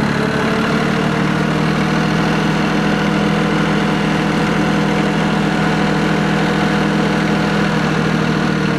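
Tractor engine running at a steady speed, its pitch holding even, then cutting off suddenly at the end.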